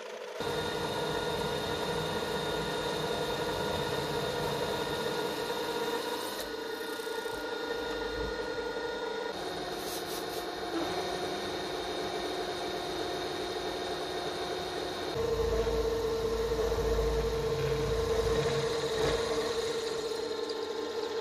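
Small milling machine running steadily while cutting metal, an end mill milling and then a drill bit boring. The pitch changes abruptly a few times, and from about fifteen seconds in it gets louder, with a low rumble.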